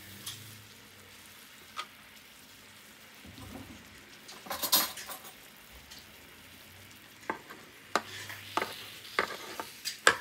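Raspberry filling sizzling faintly on the hot grill plates of an open electric sandwich maker. A few sharp clicks are scattered through it, with a louder clatter about halfway. Near the end, metal spoons click against the plates as the grilled puff pastry is lifted.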